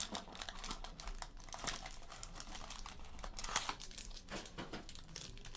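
Crinkling of a trading-card pack wrapper, with irregular small crackles and rustles as the pack is handled and opened.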